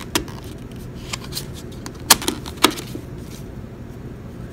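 Handling clicks from a plastic world travel adapter: its slide-out plug prongs and casing clicking under the fingers. A few sharp separate clicks, the loudest two about half a second apart near the middle.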